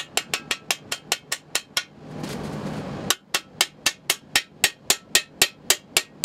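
Hammer blows on a steel bearing driver, rapid and even at about four to five a second, driving a front balance shaft bearing into its bore in a 4G63 cast-iron engine block. The hammering breaks off for about a second, about two seconds in, then resumes.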